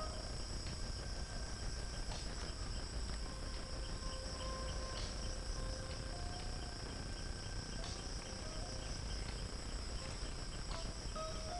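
Steady, high-pitched chorus of insects such as crickets, unbroken throughout, with a low rumble underneath.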